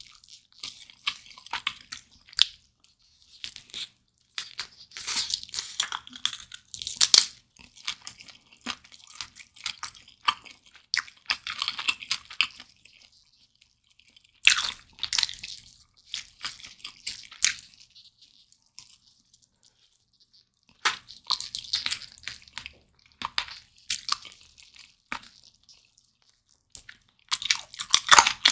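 Close-miked eating of a sauce-glazed roast chicken leg: biting and chewing in bursts of sharp clicks and crunches, with a quiet pause of a few seconds a little past the middle.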